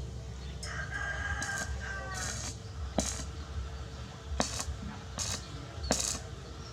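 A rooster crowing once, a call of about two seconds, over sharp metallic-sounding clicks that come irregularly, roughly once a second.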